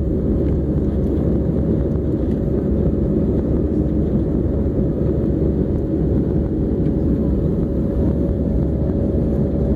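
Jet airliner cabin noise in flight: the engines and the rushing airflow heard from a window seat as a steady low roar, with a faint steady hum over it.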